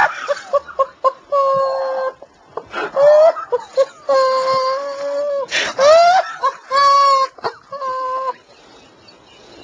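A man's stifled laughter: a run of high, squeaky squeals held up to a second at a time, some rising in pitch, broken by gasps and muffled by a hand over his mouth as he tries to hold it in. It dies down near the end.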